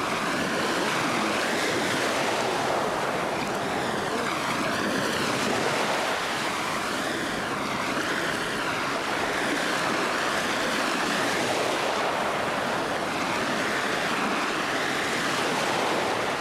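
Small waves washing and breaking on a sandy beach at high tide, a steady wash of surf.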